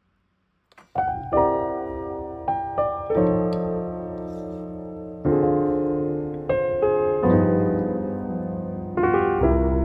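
Background piano music: single notes and chords struck and left to ring, starting about a second in after a brief silence.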